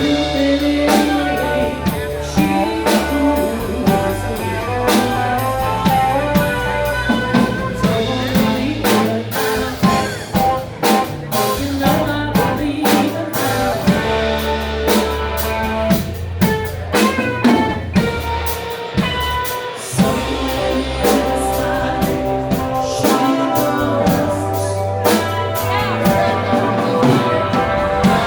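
A rock band playing, with electric guitar, bass and drum kit keeping a steady beat.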